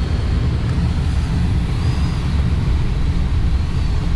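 Steady rush of airflow around a Twin Astir glider's cockpit on final approach, with the airbrakes extended.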